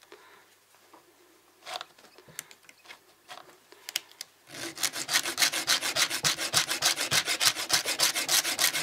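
Small round needle file rasping on a mini cordless chainsaw's chain cutter, sharpening the dull tooth. A few faint scrapes and clicks come first, then about halfway in a fast, even run of filing strokes starts and goes on to near the end.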